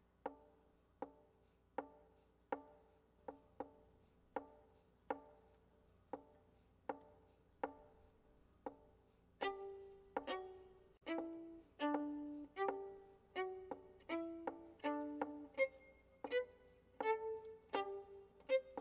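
Background instrumental music: a steady pattern of sharply struck, decaying notes, joined about halfway through by a louder, busier melody line.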